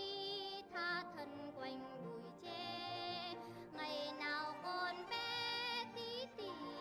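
A children's song: a high singing voice with a wavering vibrato over backing music.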